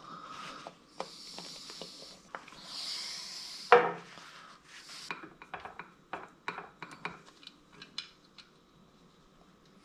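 Paper towel rubbing over the aluminium gearcase of an outboard lower unit in three wiping strokes. A single sharp knock just under four seconds in is the loudest sound. It is followed by a run of small clicks and taps as the hands work on the gearcase plugs, and these die away near the end.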